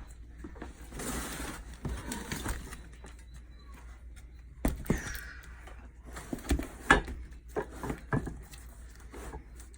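Handling noise from unpacked stunt-cage parts: a rustle of packaging, then a string of sharp knocks and taps about halfway through.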